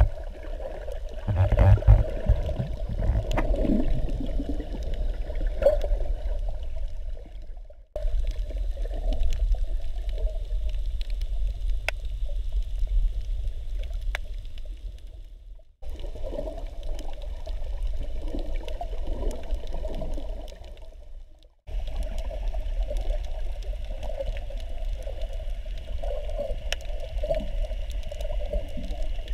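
Muffled underwater noise from a submerged camera: a steady low rumble of moving water with a wavering hum in the middle and a few faint sharp clicks. It cuts out briefly three times, about 8, 16 and 22 seconds in.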